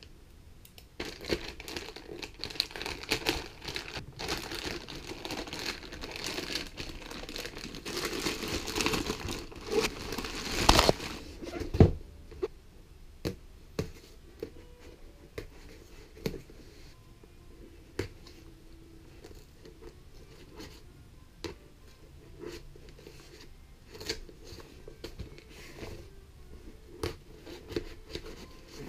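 Plastic courier mailer being crinkled and torn open, with a loud rip near the middle followed by a thud; then a cardboard box handled on a desk and its packing tape cut, with scattered taps and scrapes.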